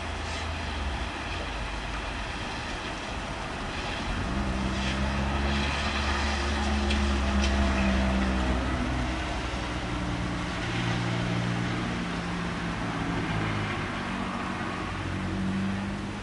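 Steady rain hiss during a thunderstorm, with a motor vehicle's engine running underneath, its low hum swelling louder from about four to nine seconds in and shifting pitch in steps.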